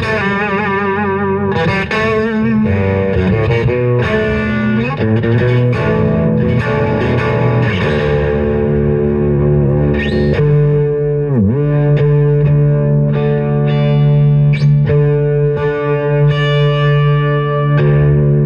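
Electric guitar with a Guyker tremolo bridge, played through distortion. Sustained notes and chords waver with vibrato, and about eleven seconds in there is a quick dip in pitch that springs back, in the manner of a tremolo-bar dip. The notes after it come back to the same pitch.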